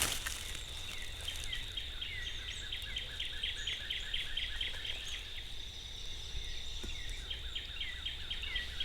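Outdoor spring ambience: a steady high insect buzz, with a songbird repeating quick short notes in two runs, and a low rumble of wind underneath.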